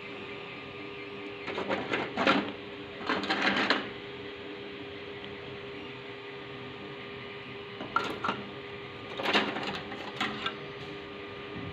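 3D printer in the middle of a print: a steady hum of fans and stepper motors, broken by short, louder buzzing moves of the print head, two about two and three seconds in and a cluster between about eight and ten and a half seconds.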